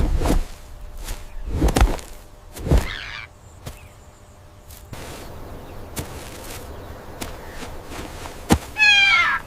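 Three dull thumps in the first three seconds, a sharp click, then near the end a short, high, wavering animal call that falls in pitch.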